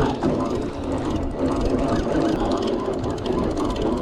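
A boat's engine running with a steady mechanical drone.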